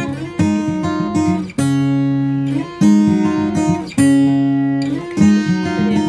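Background music of strummed acoustic guitar chords, the chords changing every second or so with a few held longer.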